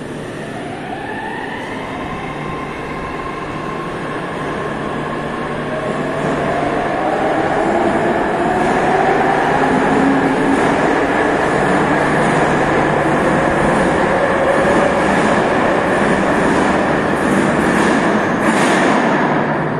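Metro train running alongside the platform, its electric motors' whine rising in pitch as the noise grows louder, over a steady low hum. A short rush of noise comes near the end.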